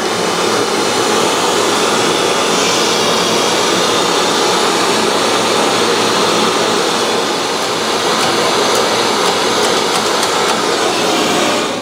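Hand-held gas blowtorch burning with a steady rushing hiss, its flame heating a steel thrust collar so it expands enough to be pressed onto the shaft.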